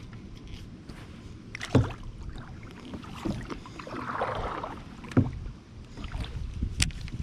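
Knocks and handling noise in a fishing kayak: two sharp knocks about two and five seconds in, a few lighter clicks, and a brief hiss of noise a little after four seconds.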